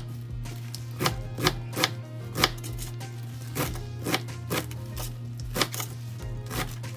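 Kitchen knife chopping a rolled bundle of collard greens on a cutting board: crisp, uneven strikes of the blade through the leaves and stems onto the board, about two a second.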